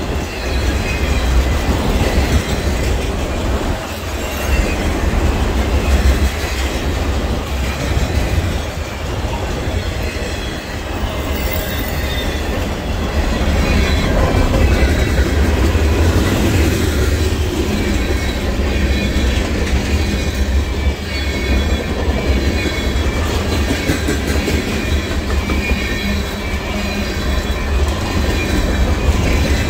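Freight cars (autoracks, covered hoppers and tank cars) rolling past close by: a steady rumble of steel wheels on the rails, with a faint high wheel squeal.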